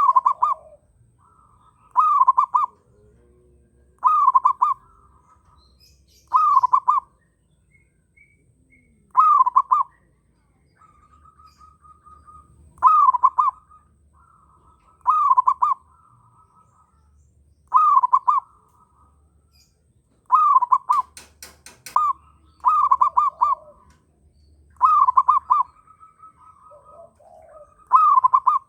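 Zebra dove (perkutut) cooing, a short loud phrase repeated about every two seconds, the persistent calling of a male in strong breeding condition. Fainter calls from other birds fill the gaps, and a quick run of sharp clicks comes about two-thirds of the way through.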